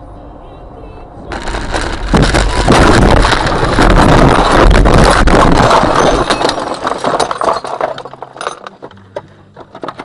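Vehicle crash: a sudden, loud burst of impact noise about a second in, running on for several seconds with breaking glass and clattering. It thins into scattered clinks of debris near the end.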